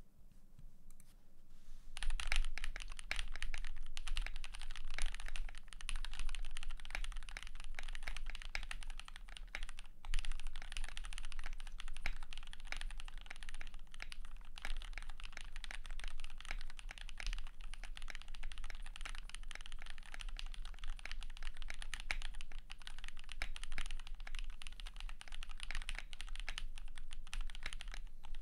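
Rapid, continuous typing on a custom 60% mechanical keyboard with lubed and filmed Gateron Pro Yellow linear switches, an aluminium plate and PBT pudding keycaps. It starts about two seconds in, with a brief pause about ten seconds in.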